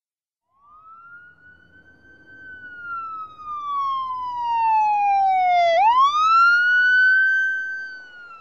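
Emergency vehicle siren wailing. The pitch falls slowly, then sweeps quickly back up about two-thirds of the way in, and the sound swells louder toward the middle before fading near the end.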